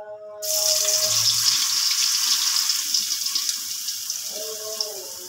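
Egg-dipped potato patty going into hot oil in a wok: a sudden loud sizzle starts about half a second in and slowly eases as the oil keeps bubbling around it.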